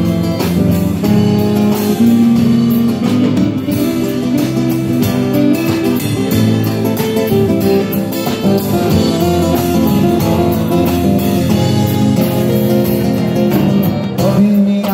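A live band plays an instrumental passage: an acoustic guitar strummed over a drum kit played with sticks, with frequent drum and cymbal hits.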